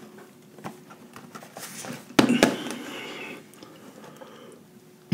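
Cardboard breadcrumb box being handled: two sharp taps a little over two seconds in, then about a second of rustling, with faint small ticks around them.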